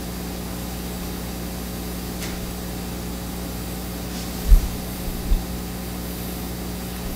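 Steady electrical hum and hiss with a faint click, and two dull low thumps about four and a half and five seconds in, the first the louder.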